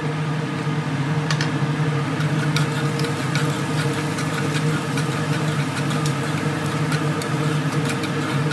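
A small electric motor running steadily with a low, even hum, with scattered light clicks and ticks over it.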